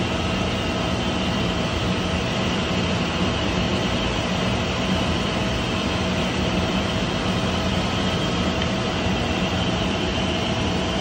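Electric-motor-driven centrifugal pump running steadily: an even mechanical drone with a constant hum and a faint steady whine.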